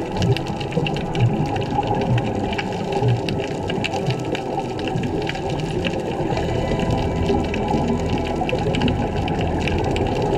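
Underwater sound on a diver's camera: gurgling scuba regulator exhaust bubbles over a steady fine crackle of clicks from the reef.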